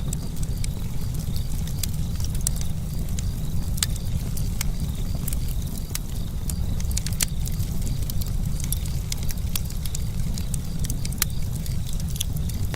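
Campfire burning, the wood crackling with irregular sharp pops over a steady low rumble.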